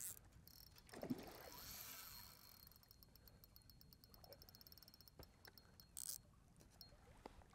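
Faint, fast, even ticking of a Daiwa BG spinning reel as a hooked sea trout is played on the line, with one brief louder sound about a second in.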